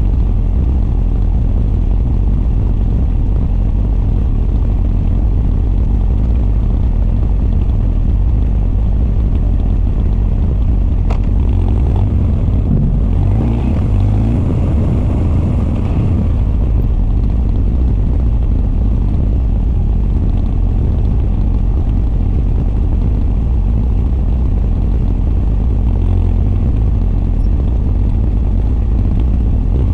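Honda CB1300 SF's inline-four engine running, its Keihin FCR41 carburettor intake and r's gear Wyvern exhaust heard together at a steady, even pace. About halfway through, a stretch of a few seconds adds more hiss higher up.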